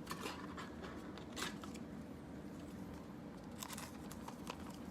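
Trading cards being handled by hand: a few faint, scattered rustles and light clicks.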